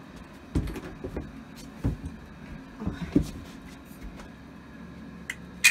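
A few dull knocks and bumps as someone works inside a bathroom vanity cabinet, with a sharp click near the end.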